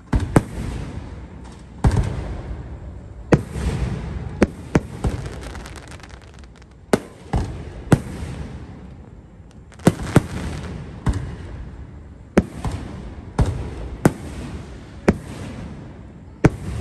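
Aerial firework shells bursting overhead in quick succession: about eighteen sharp bangs, irregularly about once a second, each trailing off in a low rumble.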